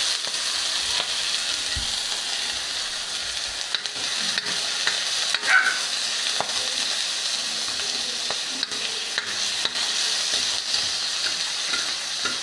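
Chicken tail pieces and chicken fat sizzling steadily in a pan with a little oil as the fat renders into chicken oil. A single brief clink about five and a half seconds in.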